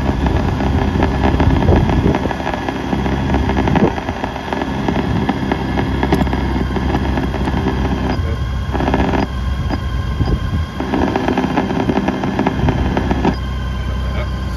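Honda GL1800 Gold Wing's flat-six engine idling steadily in neutral.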